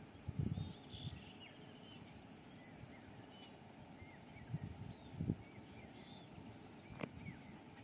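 Small birds chirping faintly: short, high calls scattered throughout, over a faint outdoor hiss. A few low thumps come about half a second in and again around four and five seconds, and a single sharp click comes about seven seconds in.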